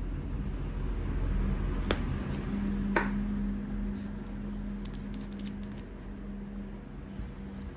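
Small objects being handled, with two sharp clicks about two and three seconds in and lighter ticks after, over a steady low hum.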